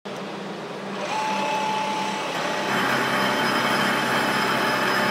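Slant-bed CNC lathe with a powered tool turret running: a steady mechanical hum with a high whine that sets in about a second in. It grows louder and fuller about halfway through as the turret's tool comes up to the workpiece face.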